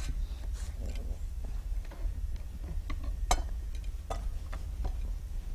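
A knife slicing a red onion on a cutting board: a few scattered, irregular sharp taps, the clearest about three seconds in, over a low steady hum.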